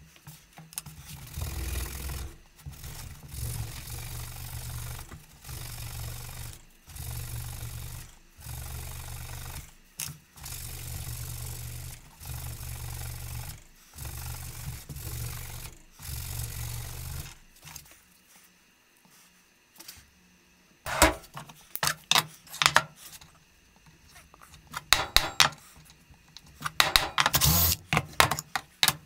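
Hand work on aluminium keytag stock: about nine regular back-and-forth rubbing strokes, each a second or two long, with short pauses between them. After a brief quiet, a run of sharp clicks and knocks follows near the end.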